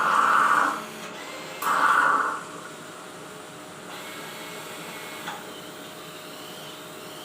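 Contento fresh-milk coffee vending machine working through a drink cycle: two short loud bursts about a second and a half apart, then a steady mechanical running noise.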